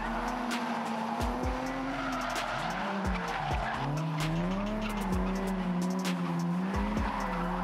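Two drift cars, a Nissan 350Z and a BMW, sliding in tandem: engines revving up and down with the throttle while the tyres squeal and skid.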